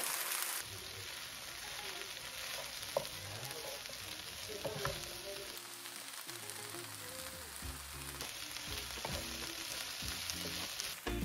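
Zucchini, peppers, corn and cherry tomatoes sizzling steadily in olive oil in a frying pan, with a wooden spoon stirring them near the end. Soft background music plays underneath.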